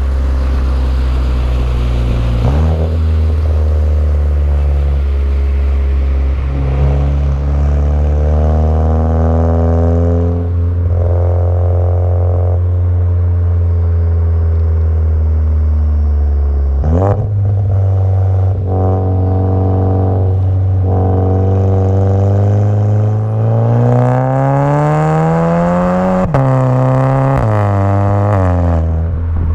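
Turbocharged 2.0-litre four-cylinder of a VW Jetta GLI Mk6, fitted with a downpipe and cat-back exhaust, running loud. The pitch holds steady for long stretches and jumps suddenly a couple of times. Near the end it climbs for a few seconds, then drops abruptly with a sharp crack.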